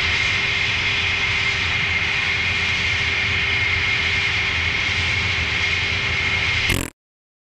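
Jet airliner engines running steadily: a broad rush with a high whine over it, cutting off abruptly near the end.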